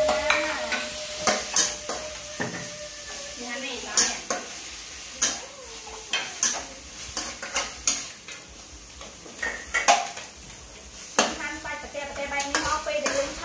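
Beef sizzling in a wok over a gas flame, stirred with a metal spatula that scrapes and clacks against the pan at irregular moments.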